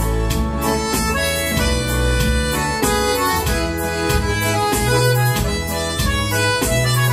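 Instrumental intro of a Brazilian country (sertanejo) song: a piano accordion plays the reedy melody over a strummed nylon-string guitar and a keyboard's bass line and backing, in a steady rhythm.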